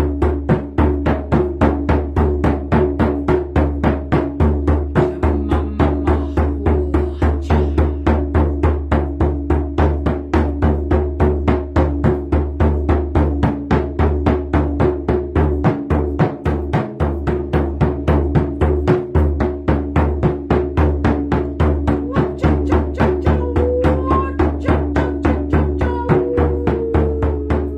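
A hand drum beaten in a steady, even rhythm of about three beats a second, each beat ringing on into the next.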